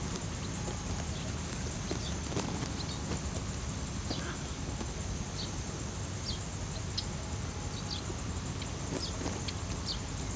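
Outdoor ambience: a steady low rumble under a thin, steady high hum, with faint short high chirps about once a second from a couple of seconds in.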